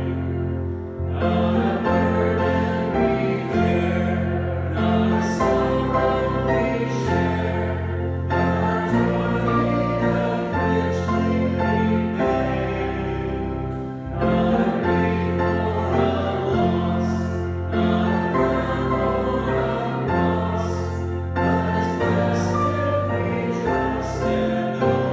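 A hymn sung by several voices over a sustained keyboard accompaniment with a steady bass, in long phrases with short breaks between them.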